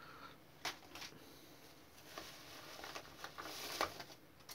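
Faint rustling and crinkling of sealed plastic parts bags and bubble wrap being handled, with a few light clicks and a louder crinkle near the end.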